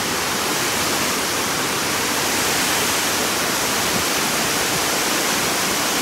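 Small waterfall pouring into a rocky plunge pool: a steady, unbroken rush of falling water.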